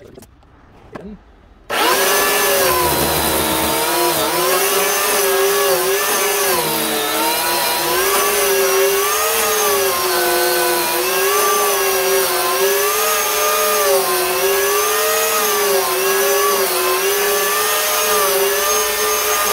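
McCulloch electric chainsaw cutting into an old wooden beam with a dull chain. The motor's whine starts suddenly about two seconds in, dips and recovers in pitch over and over as the blunt chain bogs under load, and stops sharply near the end. The chain cuts crooked and cannot get through the wood.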